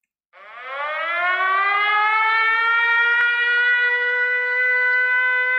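Air-raid siren winding up from a low pitch into a steady, loud wail, sounding an air-raid alert.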